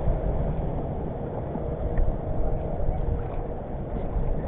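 Steady wind and sea noise on a small outrigger boat, strongest in the low range, with a faint steady hum underneath.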